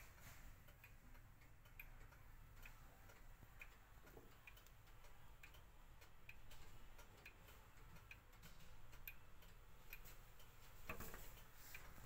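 Mechanical chiming clock movement ticking, its escapement giving a slow, even tick about once a second. A louder noise comes near the end.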